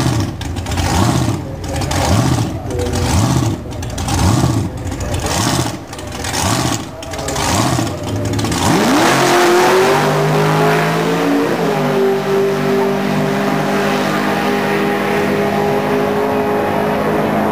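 Topolino altered drag car's engine idling at the start line with a rough, pulsing lope about once a second, then launching straight from idle about halfway through: the pitch sweeps sharply upward and the engine runs on at a steady high note as the car pulls away down the strip.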